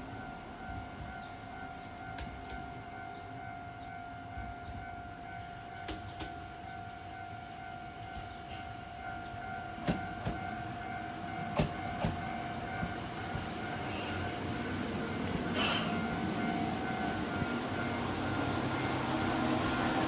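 Japanese level-crossing warning bell ringing steadily with its repeating kan-kan tone. Over the last several seconds a train's rumble grows steadily louder as it approaches the crossing, with a few sharp clicks and a short hiss along the way.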